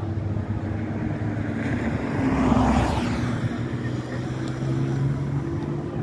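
Street traffic at an intersection: engines running steadily, with a vehicle passing close that swells loudest about two and a half seconds in, then fades.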